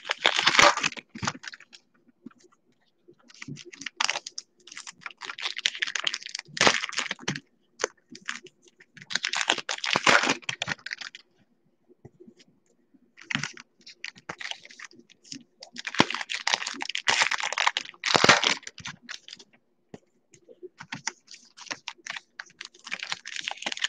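Baseball trading cards being flipped and slid one over another in the hands: a dense, rapid clicking rustle that comes in spells of one to four seconds, with short pauses between.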